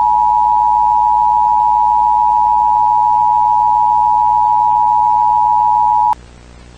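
Emergency Alert System attention signal: two loud steady tones sounding together at 853 and 960 Hz, cutting off abruptly about six seconds in.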